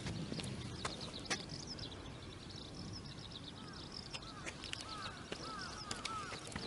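Wild birds chirping: quick high twitters in the first two seconds, then a run of short repeated calls from about four seconds in. A few sharp clicks are heard among them.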